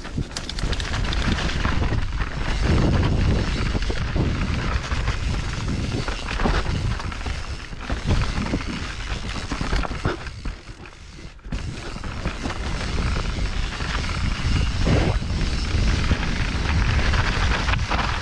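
Mountain bike descending a rough dirt trail at speed, heard from a camera mounted on the rider: wind buffets the microphone while the tyres and frame rattle and clatter over roots and dirt. It eases briefly about ten seconds in, then builds again.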